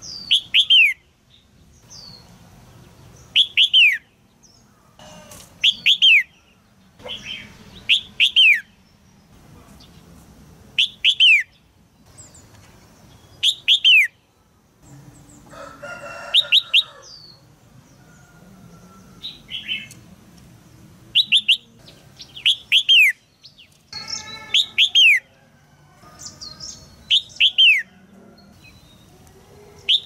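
Red-whiskered bulbul chirping: short sharp calls, each a quick downward note, repeated every two to three seconds and often in pairs. These are the female's chirps, used to prompt a male to sing.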